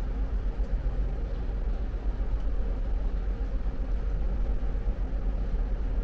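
Steady low rumble of a ship's machinery, heard from inside the vessel.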